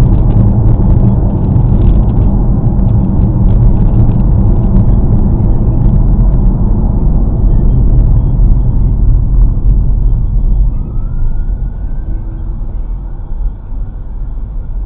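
Steady rumble of a car's road and tyre noise, heard from inside the cabin through a dashcam. It gets noticeably quieter about ten seconds in.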